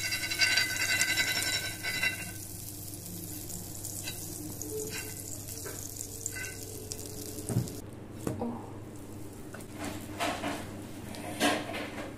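Hot oil sizzling in a black iron frying pan as a metal spoon spreads it around. The sizzle is loudest in the first couple of seconds, and the second half brings several clinks and knocks of metal on the pan.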